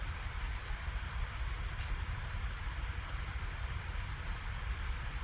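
Steady low rumble with an even hiss of background noise, and one soft click about two seconds in.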